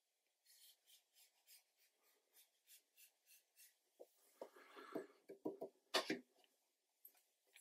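A pointed brush stroking across heavy Bockingford watercolour paper: a run of short, faint, scratchy strokes at about three a second. About four seconds in come louder rubbing and handling sounds against the paper, and then a single sharp knock about six seconds in.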